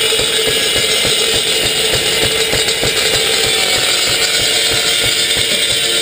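A 54-inch circular sawmill blade with high-speed steel tips spinning at speed, a steady hum under a loud hiss, with a rapid low knocking beneath it.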